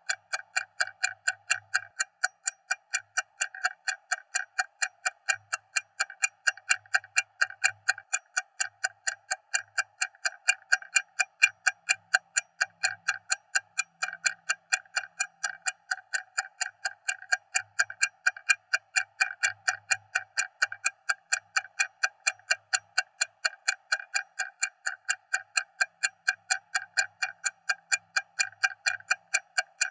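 Stopwatch ticking at a fast, even pace, several sharp ticks a second, each with a short bright ring.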